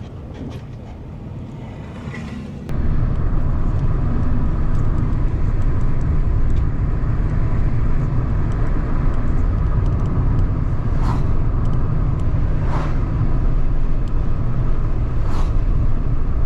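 Steady low rumble of a moving car, engine and road noise, which jumps suddenly louder a little under three seconds in and then holds steady, with a few brief swells later on.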